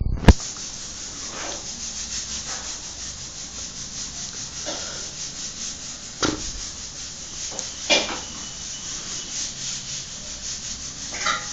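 Steady rubbing and scraping noise, broken by a loud sharp knock just after the start and fainter knocks about six and eight seconds in.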